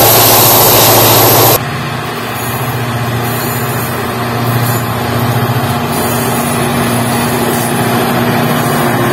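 A passenger train rushing past close by, a loud rush of wheels and air that cuts off about a second and a half in. Then the two-stroke V16 engine of an EMD WDP4 diesel locomotive drones steadily as the locomotive approaches under power, growing gradually louder.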